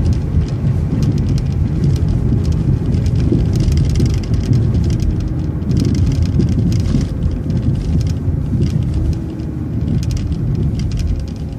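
Steady running noise of an MCO ViewMaster transit bus, heard while riding on it: a loud, even engine and road rumble with a wavering drivetrain whine and light rattling.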